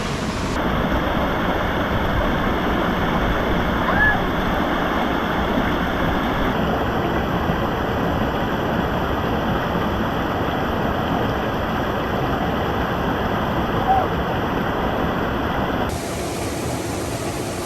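Waterfall rushing steadily, a continuous roar of falling water. The character of the roar shifts abruptly a few times, and there are two faint short high chirps.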